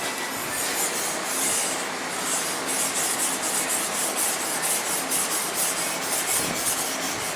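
Hand sanding of a knife handle scale: abrasive paper rubbed back and forth in quick, regular strokes, a few per second, with no motor sound.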